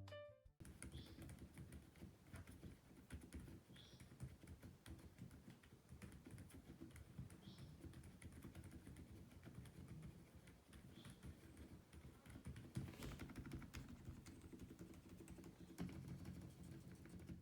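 Continuous typing on a mechanical keyboard with Akko Fairy Silent linear switches: soft, muted keystrokes, a little louder around thirteen and sixteen seconds in.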